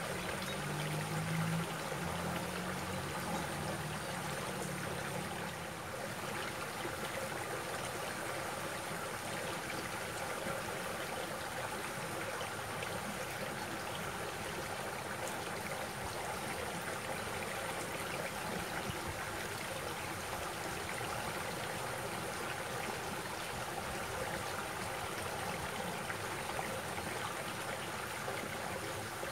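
Shallow stream running and trickling over rocks, a steady sound of flowing water.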